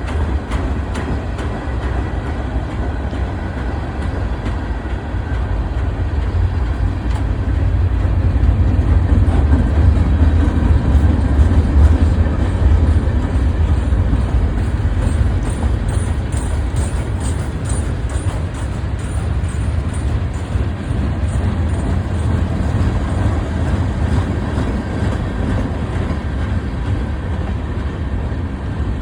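BNSF freight train rolling past: a steady, heavy low rumble with the clatter of wheels on the rails, swelling a little about a third of the way through.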